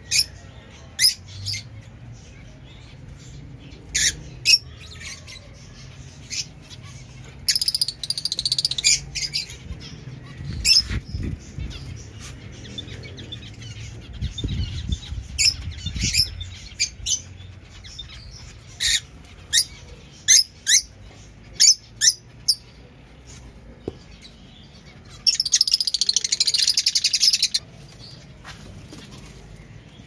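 Lovebirds calling in an aviary: short, sharp, shrill chirps scattered throughout, with two bouts of rapid chattering, about seven seconds in and again near the twenty-five second mark. A low rumble sounds through the middle.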